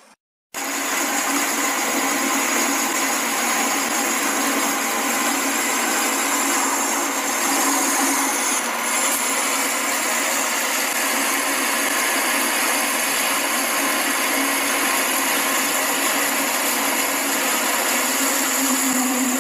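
A centre lathe running with its chuck and workpiece spinning: a loud, steady mechanical whir with a high whine, starting abruptly about half a second in.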